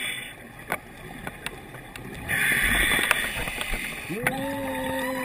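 Scuba regulator exhaust bubbling in one burst about halfway through, with a few sharp clicks scattered around it. Near the end a diver's voice hums one steady note through the regulator mouthpiece, rising at the start.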